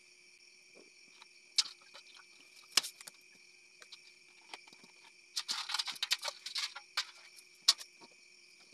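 Live crabs being lifted out of a plastic bucket and dropped into a steel basin of shallow water: sharp clicks and clatters of shell on metal with small splashes, thickening into a flurry a little past the middle. Crickets chirr steadily behind.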